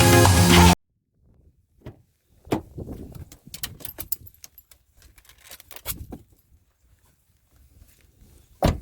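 Electronic background music that cuts off under a second in, followed by sparse, irregular small clicks and knocks, with one sharper knock just before the end.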